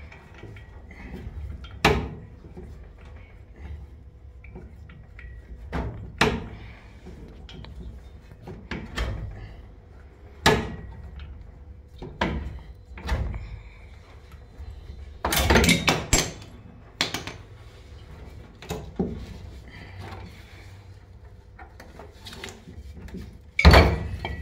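Metal tools clinking and knocking against the mounting bolts and base plate of an old, rusted refrigerator compressor as a socket wrench loosens them. There is a brief burst of clattering about two-thirds of the way through, and a heavy metal clunk near the end as the compressor is lifted free.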